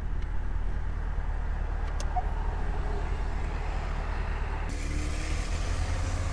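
C5 Corvette's V8 running at a steady cruise with road noise, its engine note beginning to climb near the end.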